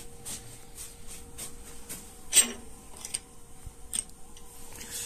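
Wood fire burning hard inside a shaft-type long-burning boiler: irregular crackling clicks, with one sharp loud crack a little over two seconds in, over a faint steady electrical hum.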